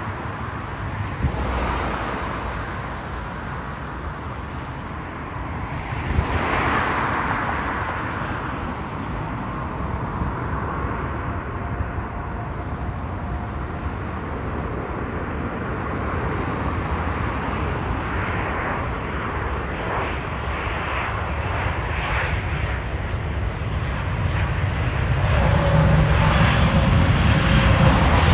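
Twin-engine widebody jet airliner landing: a steady jet-engine noise as it comes in on approach and flares over the runway. The noise grows louder and deeper in the last few seconds as the jet rolls out on the runway.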